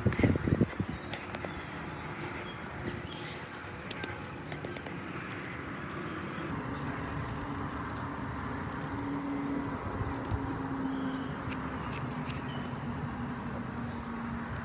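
A bare hand scratching and scooping loose, dry soil out of a small hole for about the first second, then a steady outdoor background with faint birds.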